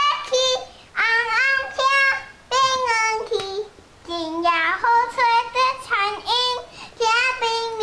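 A young girl singing a Taiwanese Hokkien song unaccompanied, in short sung phrases with brief pauses between them.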